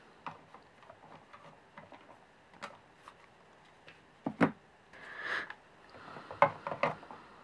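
Hard plastic toy parts being handled: the cage and figures on a toy truck's trailer are lifted off and a large plastic dinosaur figure is set onto the trailer bed. Scattered light clicks and knocks, the sharpest about four and a half seconds in, with a brief scraping rustle about a second later and two more knocks near the end.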